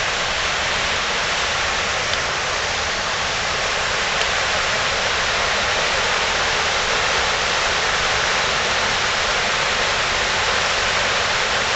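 Fast mountain stream rushing over rocks and riffles: a steady, even rush of whitewater.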